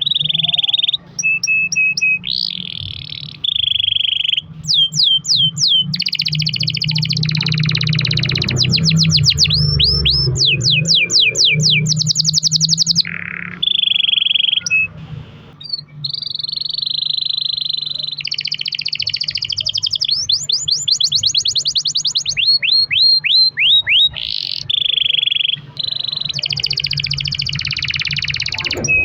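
Domestic canary singing a long continuous song: rapid trills and rolls, each held for a second or two before switching to the next phrase, with barely a pause. A faint steady low hum runs underneath.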